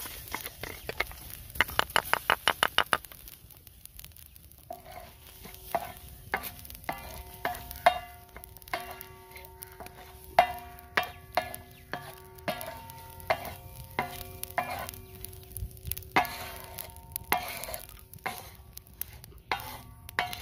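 Wooden spatula stirring and scraping whole spices (coriander seeds, dried red chillies, cumin, black peppercorns) as they dry-roast on a hot flat iron tawa. Each irregular knock of the spatula sets the iron plate ringing. About two seconds in there is a fast run of about a dozen sharp clicks.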